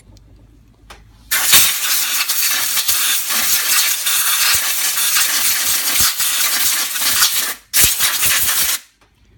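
Compressed air hissing as it blows the leftover test fluid out of a Rochester 2G two-barrel carburetor after its accelerator-pump test. One long blast of about six seconds starts about a second and a half in, then a short second blast of about a second follows.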